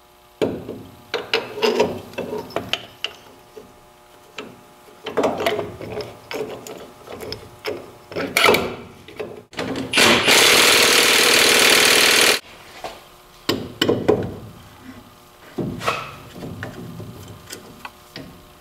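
Metal parts knocking and clinking inside a truck's differential housing as they are handled, then a power tool run in one loud burst of about two and a half seconds, about ten seconds in.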